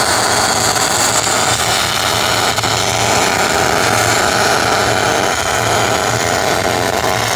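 MIG welding arc burning continuously as stay bolts are welded on by hand: a steady sizzling hiss. A low hum runs underneath.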